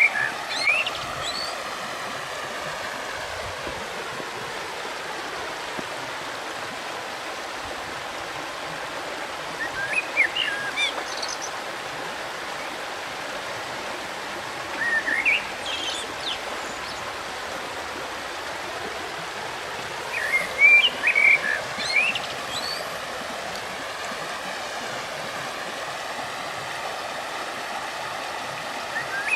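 River water flowing steadily, with a small bird singing a short chirping phrase five times over it, every five to ten seconds.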